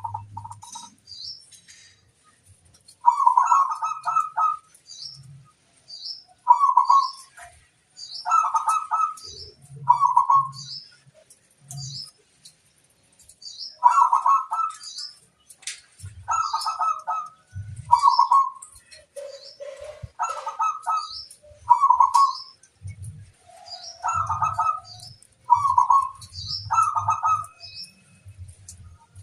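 Zebra dove (perkutut) cooing its staccato, bubbly song in short phrases repeated every one to two seconds, with faint high chirps of small birds between the phrases.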